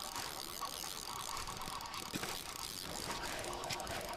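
Spinning reel being cranked, its gears giving a soft, steady mechanical whir as a hooked fish is reeled up.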